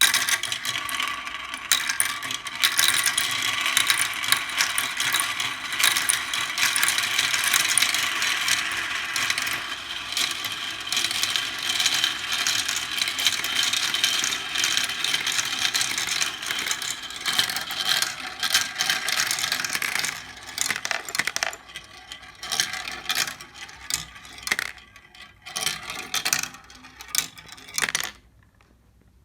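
Many glass marbles clacking and rattling against each other and their track in a dense, continuous clatter. About 20 s in it thins to scattered clicks and short flurries, then stops just before the end.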